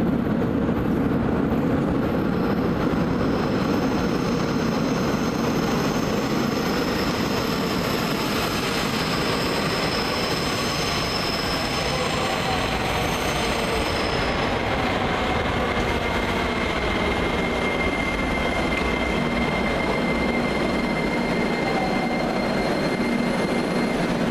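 Russian-built metro train approaching through the tunnel and running into the platform, a steady loud rumble of wheels on rail. High thin wheel squeal sounds in the first half; from about the middle a steady whine joins in as the cars pass along the platform.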